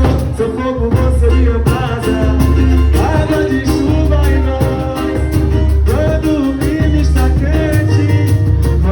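Music: an upbeat Latin-style song with a steady bass, an even percussion beat and a melody line over it.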